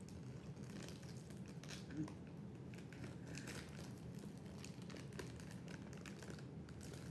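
Plastic Combos snack bag crinkling as it is handled, in faint scattered crackles, with one sharper click about two seconds in.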